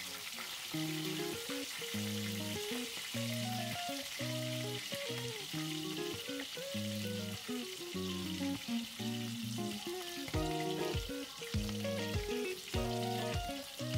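A whole fish frying in hot oil in a pan, with a steady sizzle, under background music: a melody of short notes over a bass line that grows punchier in the last few seconds.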